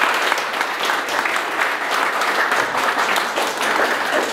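Audience applauding, many people clapping at a steady level.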